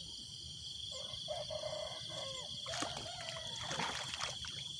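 Steady high-pitched chorus of insects, with light water splashing and dripping about three to four seconds in as hands work at the water's edge. Faint animal calls sound in between.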